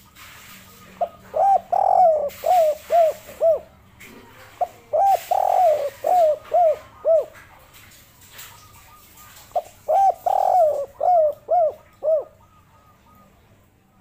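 Spotted dove cooing its song three times. Each phrase is a couple of short notes, a longer drawn-out coo, then three short clipped 'kuk' notes, the three-note ending that dove keepers call the 'kuk 3' song type.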